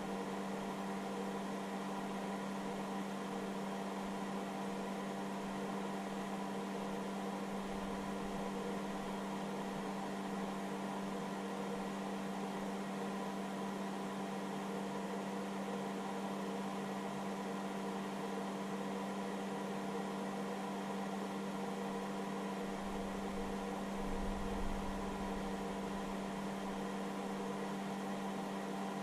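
Small cooling fan of a hobby battery charger running under load, giving a steady hum with a fixed pitch. Soft low rumbles come once about a third of the way in and again near the end.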